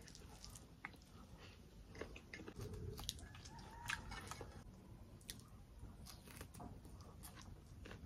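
A person chewing food, with faint scattered clicks of fingers mixing food on a metal plate.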